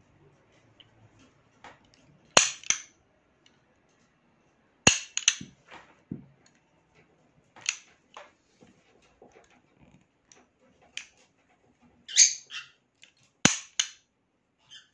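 Sharp metallic clacks of a Beretta 92-style Kimar pistol's slide and action being worked by hand, six of them, several coming in quick pairs.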